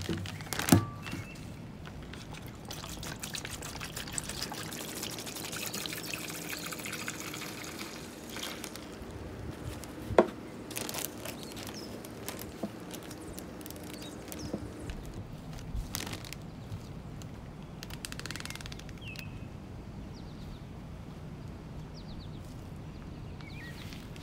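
Liquid pouring and trickling steadily, with a sharp knock about ten seconds in.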